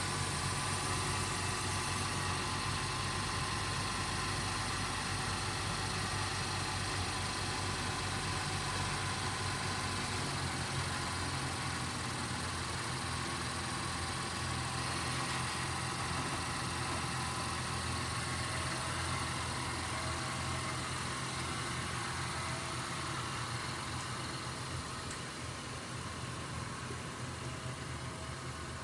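A car engine running steadily at idle, with a constant low hum and no revving; it grows a little quieter toward the end.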